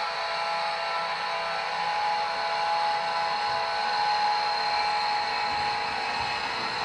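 Model freight train running along the layout's track: a steady whir of the locomotive's motor and the wagons' wheels rolling on the rails, with a few faint held tones.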